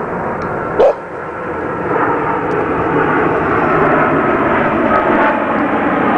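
A single sharp bark from a Dandie Dinmont terrier about a second in. From about two seconds a steady drone swells up and holds underneath.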